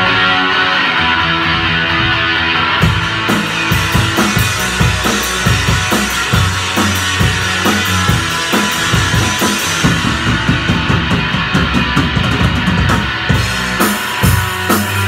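A rock band playing: electric guitar, bass guitar and drum kit, with cymbal strikes coming in about three seconds in.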